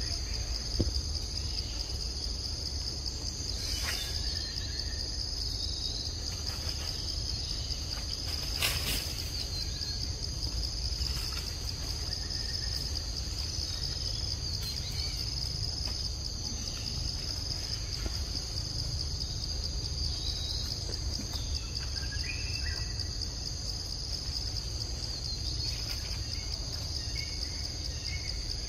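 Forest insects making a steady high-pitched drone, over a low rumble. A few faint chirps and two short clicks, about four and nine seconds in, stand out.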